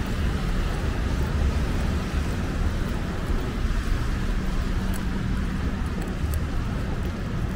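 Steady street traffic on a rain-wet road: a low rumble of passing vehicles under an even hiss of tyres on wet asphalt.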